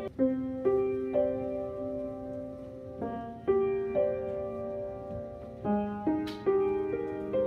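Piano playing a slow choir accompaniment in sustained chords, with a new chord or note struck every half second to a second.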